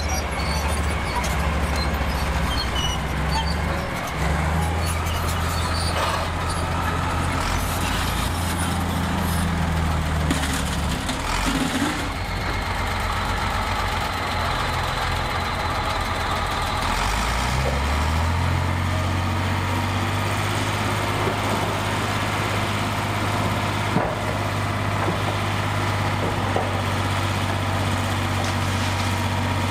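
Heavy diesel engine of earthmoving machinery running steadily, its pitch shifting a few times and rising about halfway through as it is throttled up, with scattered knocks and clanks over it.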